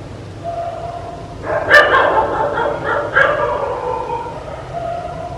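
A dog barking: a few barks starting about a second and a half in, then tailing off.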